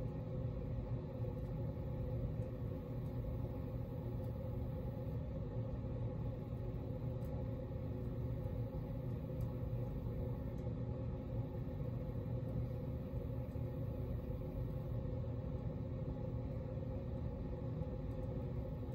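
Hunter baseball-themed ceiling fan running, a steady low hum and rush of air with no change in speed.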